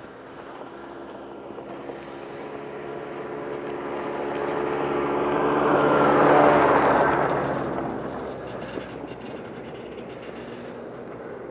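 Snowmobile engine approaching, passing close about six seconds in, then fading as it drives away.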